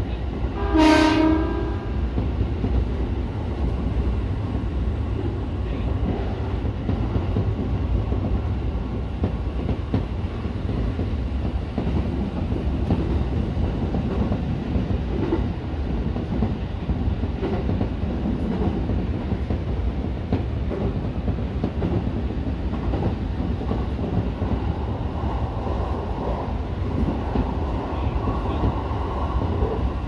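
E231-series electric train running along the track, heard from the driver's cab as a steady rumble of wheels on rail. About a second in, a horn sounds once for about a second.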